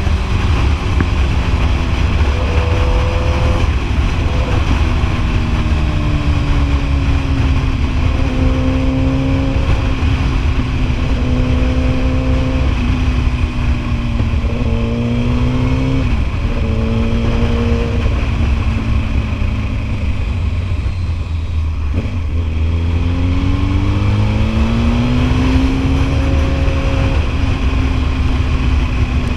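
Sport motorcycle engine under way on the road, its note holding steady for stretches, easing down as the throttle closes and climbing again as it accelerates. About two-thirds of the way through the note sinks low, then climbs strongly.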